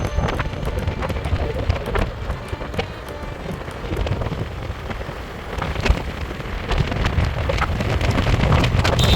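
Heavy rain with many sharp drops tapping on a surface close by, over a low steady rumble, getting a little louder toward the end.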